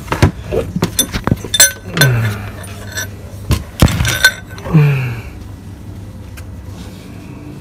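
Plastic bucket knocking and clinking as it is pushed into place under a car to catch draining engine oil, with a rapid run of sharp knocks that dies away after about five seconds.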